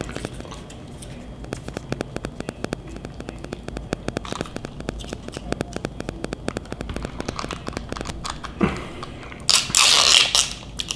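Close-miked chewing of fast food, with a rapid run of small wet clicks and crackles. About a second before the end comes a louder rustling or crunching burst lasting about a second.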